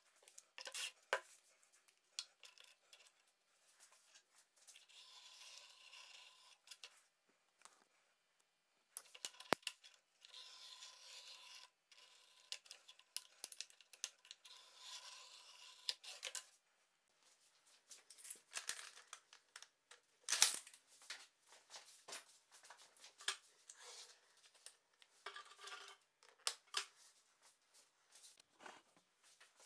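Pencil lead scraping across plywood in three long strokes, as circles are drawn with a tape measure swung from a nail pivot. Scattered sharp clicks and taps of handling come in between.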